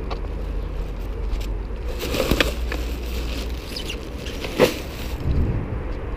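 Filled plastic rubbish bags rustling and crinkling as they are grabbed and handled, with one sharp click about four and a half seconds in and a dull thump just after, over a steady low rumble.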